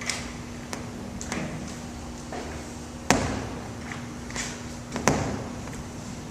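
A few sharp knocks, the two loudest about three and five seconds in, with short soft rustles between them over a low steady hum.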